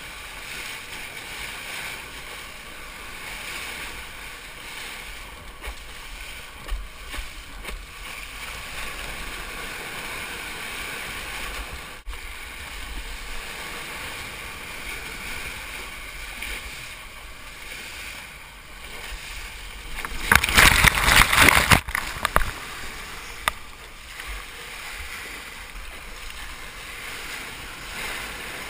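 Water rushing and sloshing against a surfboard, heard through a GoPro's waterproof housing, with a loud burst of rushing water and spray about twenty seconds in.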